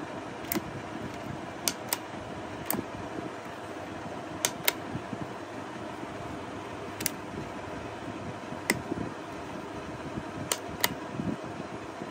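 About ten sharp plastic clicks and taps at uneven intervals as the blower is turned over in the hands, over a steady fan-like whir.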